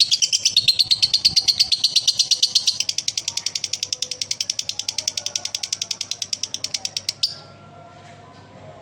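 Male lovebird's long 'ngekek' chatter: a fast, even run of shrill notes at roughly ten a second. It drops in loudness about three seconds in and cuts off abruptly about seven seconds in.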